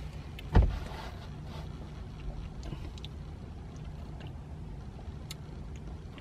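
Steady low rumble of a car's cabin, with one dull thump about half a second in and a few faint small clicks.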